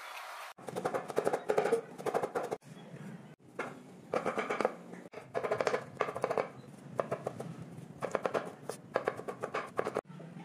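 Kitchen knife chopping vegetables on a bamboo cutting board, in quick runs of strokes each about a second long with short pauses between.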